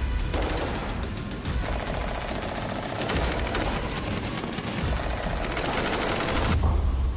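Rapid strings of AR-15 rifle fire, the shots coming fast in quick bursts, over background music; the shooting cuts off abruptly about six and a half seconds in.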